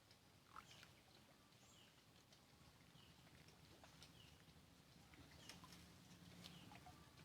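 Faint outdoor ambience: a small bird repeats a short chirp about once a second, with scattered faint clicks over a low steady hum.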